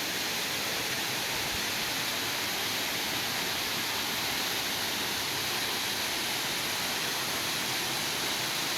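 Waterfall plunging into its pool close by: a steady, even rush of falling water, strongest in the higher range.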